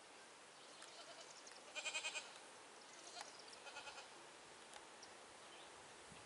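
A goat bleating twice at a distance: a louder quavering bleat about two seconds in and a fainter one near four seconds, with faint outdoor quiet between.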